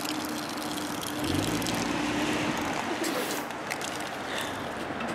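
Car driving with steady road noise, while a Samsung Galaxy S III towed on a dental-floss tether from the door handle scrapes and clatters over the asphalt. The loudest ticks and scrapes come in a cluster about three seconds in.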